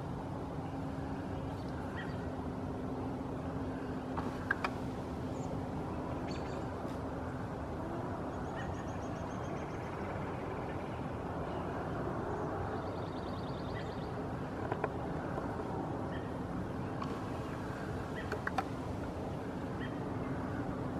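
Steady outdoor background rumble with a faint steady hum, and a small songbird giving two short, rapid high trills, about a third of the way in and again past the middle; a few soft clicks are scattered through.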